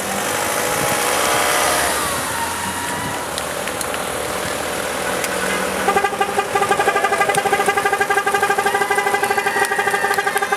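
Street noise with faint voices, then from about six seconds in a pedestrian crossing signal beeping rapidly, a fast pulsing electronic tone of several beeps a second that signals the green phase for crossing.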